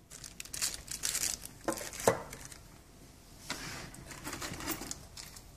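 Clear plastic packaging crinkling and rustling as it is handled, in irregular crackles, with a short lull about two and a half seconds in before softer rustling resumes.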